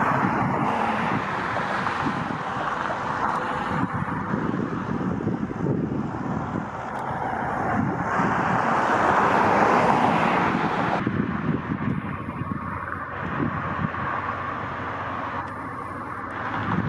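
Road traffic noise: cars going by on a busy street, loudest as one passes about nine to ten seconds in.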